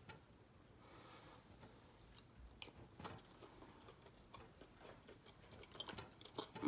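Faint chewing and mouth sounds of a person eating a mouthful of chicken chili, with a few soft scattered clicks.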